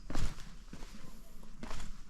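A hiker's footsteps on a stony trail: one heavy step just after the start and another near the end, with lighter scuffs between.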